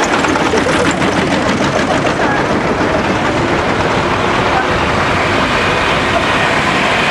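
Old tractor engines running as vintage tractors drive past at close range, with a rapid putter near the start, over crowd chatter.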